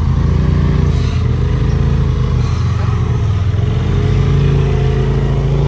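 Off-road vehicle's engine running at a steady low speed, its pitch wavering slightly.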